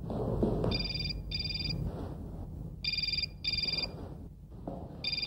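Motorola mobile phone ringing in an electronic double ring of high tones. Two full pairs of rings come about two seconds apart, and a third pair starts at the very end, over a low background noise.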